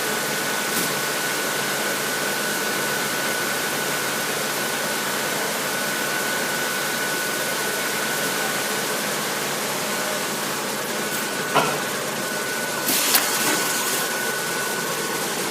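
High-frequency PVC welding machine running: a steady hiss of fan-like machine noise with a constant high whine over it. A sharp click comes late on, then a few light knocks.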